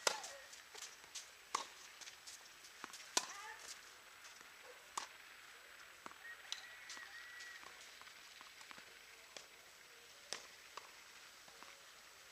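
Tennis balls struck by rackets and bouncing on the court: sharp pops, the loudest about every second and a half through the first few seconds, then fewer and fainter.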